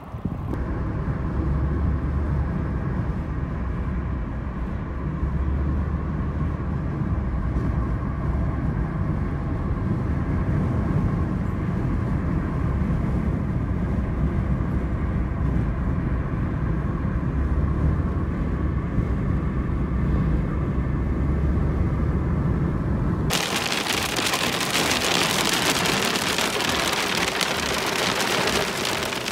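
Steady low road and engine rumble of a vehicle driving. About 23 seconds in it cuts suddenly to a dense hiss of rain and soft hail pelting down.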